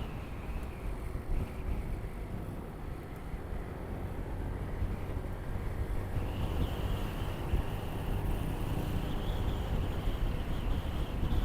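Motorcycle riding along the road: steady wind rush over the action camera's microphone with engine and tyre noise underneath. A high, even hiss fades out just after the start and returns about six and a half seconds in.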